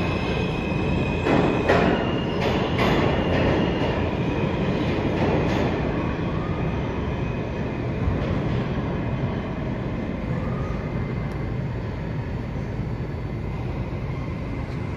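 New York City subway train running past, with a fading high whine and a quick run of clacks over rail joints in the first few seconds, then a steady rumble that eases slightly.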